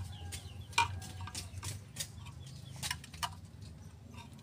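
Ratchet spark plug wrench clicking in short, irregular runs as the spark plugs are screwed back into the cylinder head, over a steady low hum.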